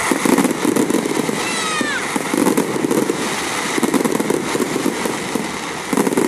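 Volleys of fireworks and firecrackers going off in a dense, loud crackle of bangs that swells in waves, with a whistle falling in pitch about one and a half seconds in.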